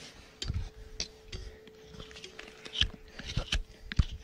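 Farrier's hoof knife scraping and paring the sole of a horse's hoof in scattered short scrapes and clicks, with a few dull low thumps as the hoof is handled. A faint steady tone runs through the first three seconds.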